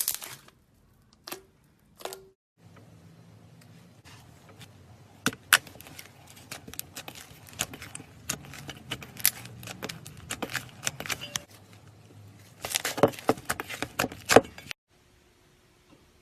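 Slime being squished and worked by hand, giving a run of sticky clicks and crackling pops that grow thick near the end, then stop abruptly.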